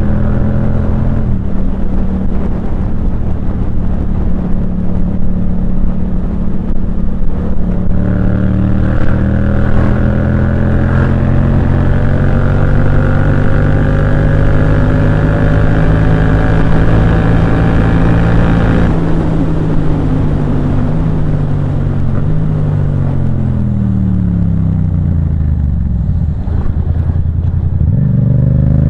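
Yamaha MT-07's parallel-twin engine through a Firetong aftermarket sport exhaust while riding: steady running, then a slow climb in revs, then several seconds of falling pitch as the engine slows, picking up again near the end.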